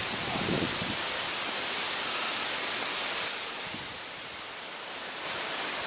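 Waterfall: a steady rushing roar of water falling and splashing.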